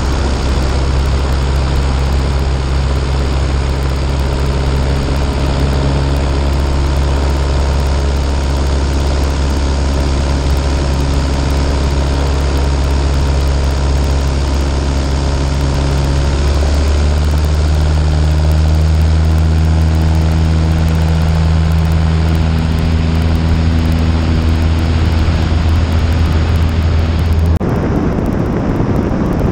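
Cessna 152's four-cylinder Lycoming engine and propeller droning steadily in flight, with wind rushing over the microphone; the engine note steps up slightly about halfway through. Near the end the engine drone drops away abruptly, leaving mostly wind noise.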